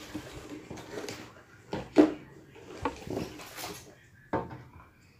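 Slime being squished and stretched by hand, with irregular sticky crackles and sharp pops, the loudest about two seconds in and again past four seconds.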